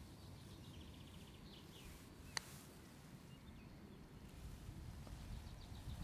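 Quiet outdoor ambience with faint bird chirps, and a single sharp click about two and a half seconds in, typical of a putter striking a golf ball.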